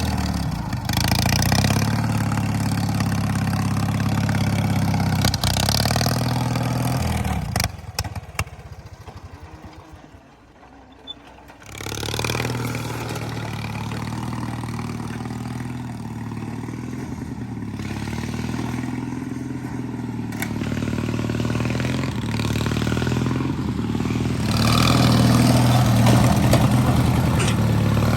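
Small engine of a riding lawnmower running, then shutting off about seven seconds in and winding down with a few clicks. It starts again a few seconds later and runs on, getting louder near the end.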